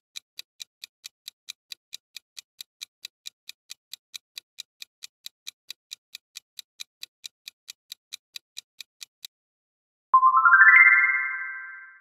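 Countdown-timer sound effect: even clock-like ticks, about four or five a second, that stop after about nine seconds. About a second later a bright chime slides up in pitch and rings out, fading, as the answer is revealed.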